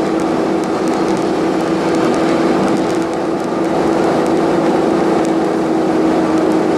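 Steady road and engine noise inside a car cruising at highway speed, with a constant droning hum.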